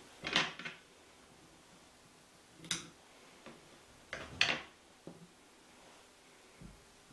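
Fly-tying handling noises at the vise: a few brief rustles and clicks as tools and materials are handled, the loudest near the start and again just past the middle.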